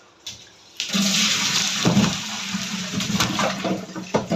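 Water gushing and splashing with a steady rush, starting about a second in, with several sharp knocks in it.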